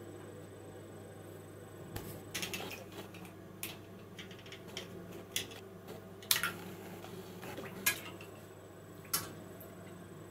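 Irregular sharp clicks and clinks of hard objects being knocked and handled, about eight of them, the loudest a little past the middle, over a steady low hum.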